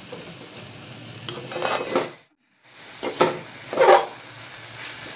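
A spatula stirring and scraping spring onion greens and chana dal around a steel kadhai, over a quiet sizzle of oil. Three louder scrapes come in the second half. The sound cuts out completely for a moment about halfway through.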